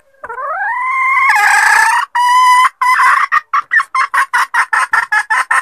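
Red junglefowl hen cackling: a long drawn-out note rising in pitch, a second shorter note, then a fast run of short clucks, about five a second.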